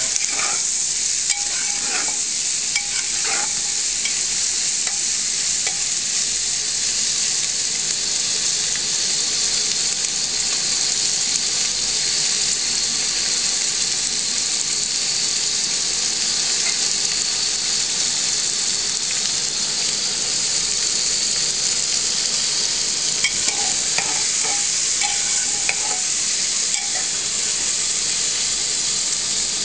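Sliced onions frying in hot oil in an open pressure cooker: a steady sizzle, with a steel spatula scraping and clinking against the pot in the first few seconds and again near the end.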